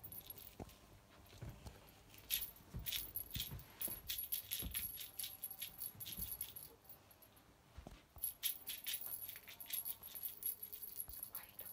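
A small jingling cat toy shaken in quick bursts of rattling clicks, with a quieter pause about six to eight seconds in.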